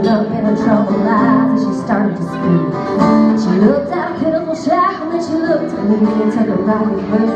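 Singing over a strummed acoustic guitar.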